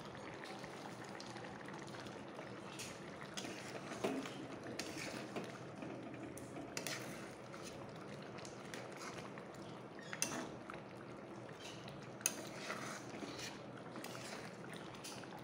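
Fish curry bubbling softly in a metal kadhai, with a spatula scraping and clicking against the pan a few times as it is stirred.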